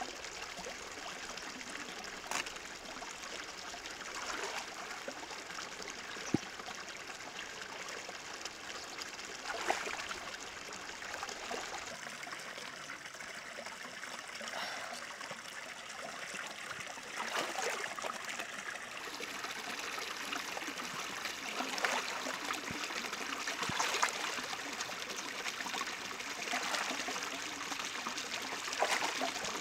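Water trickling and running in a shallow stream, a steady hiss broken by a few short knocks.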